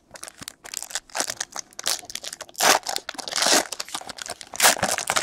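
Foil wrapper of a trading-card pack being torn open and crinkled by hand: an irregular run of sharp crackles and rips, loudest in a few bursts in the second half.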